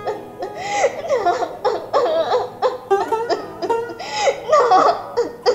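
High-pitched laughter in quick, repeated bursts over background music with faint, steady instrument tones.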